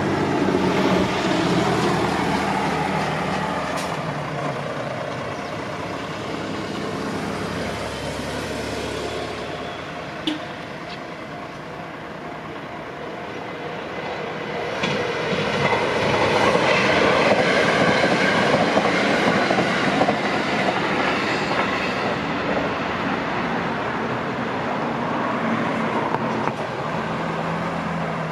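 Train running on the Gotemba Line past a level crossing: a continuous rumble of wheels on rails, loud at the start, easing off, then growing louder again from about fifteen seconds in, with one sharp click along the way.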